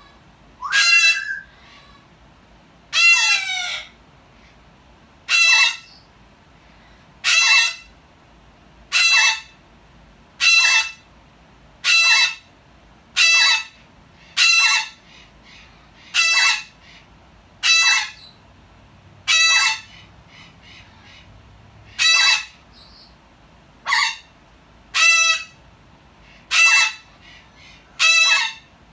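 A cockatoo and a yellow-headed Amazon parrot giving the same short, harsh cockatoo squawk over and over, the Amazon copying the cockatoo's call. About seventeen loud squawks come roughly one every second and a half; the first two are longer and fall in pitch at the end.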